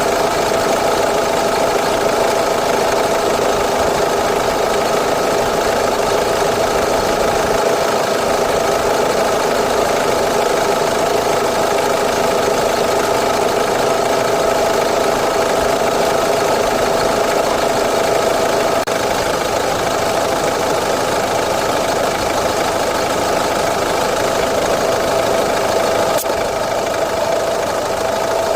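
2009 Mini Cooper D's diesel engine idling steadily, with a steady whine running over the engine noise.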